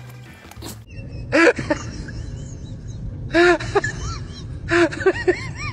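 A corgi barking in short sharp barks: one about a second and a half in, another past the middle, then a quick run of three or four near the end.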